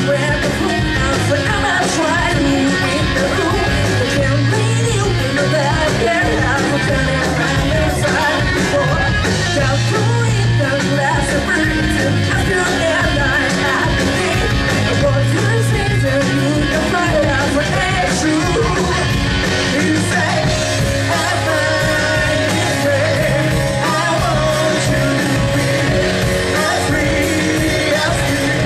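Live rock band playing: a lead vocalist singing over electric guitar and electric bass, loud and steady throughout.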